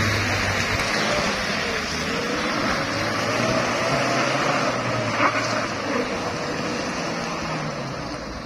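Mitsubishi L300 pickup's engine running hard under load as it strains up a slippery mud climb, its pitch wavering up and down. There is a short sharp knock about five seconds in, and the sound fades off near the end.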